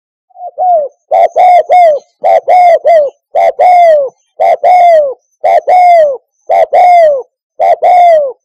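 Spotted dove cooing: a fast run of short coos, each falling in pitch, in groups of two or three about a second apart, starting a moment in.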